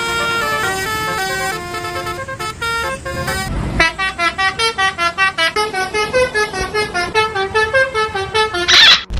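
Basuri telolet bus horn playing a melody: a few held notes stepping in pitch, then a fast run of short, evenly pulsed notes. A brief low rumble comes about three and a half seconds in, and a short loud burst comes just before the end.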